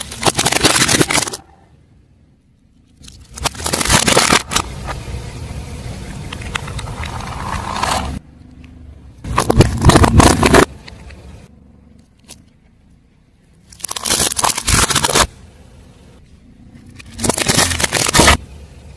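A car tyre rolling over and crushing objects, heard as five loud crunching, crackling bursts of about a second each, with quieter stretches of rolling and scraping between them.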